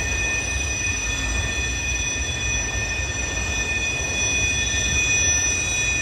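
Freight train of autorack cars rolling past, its steel wheels squealing on the rails in several steady high tones over a low rumble.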